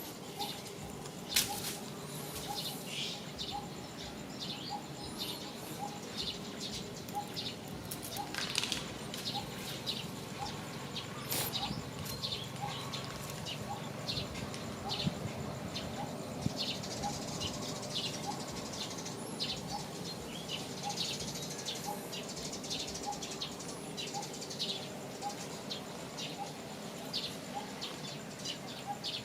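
Outdoor ambience of many short, high bird chirps, with a faint call repeating about once a second.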